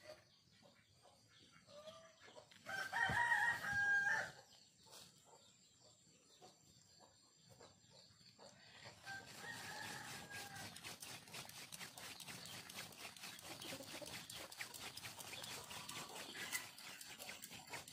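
A rooster crowing loudly a few seconds in, one call of about a second and a half, with a fainter crow following around ten seconds in. From about eight seconds on, a dense, fast ticking hiss fills the background.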